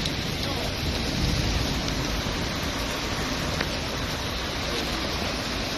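Heavy rain pouring down, a steady hiss with no single sounds standing out.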